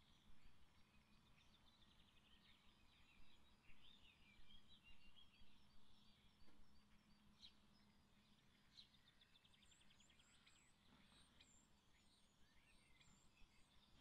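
Several songbirds singing faintly in woodland: quick chirps and rapid trills, with thin high whistles joining in the second half, over a faint low hum.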